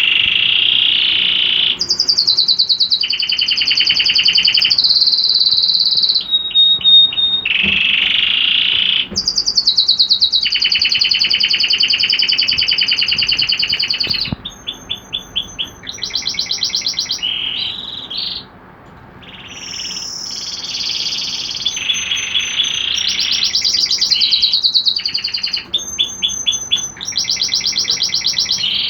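Domestic canary singing: a long song of rapid rolling trills, switching from one trill to the next every few seconds, with a brief lull about two-thirds of the way through.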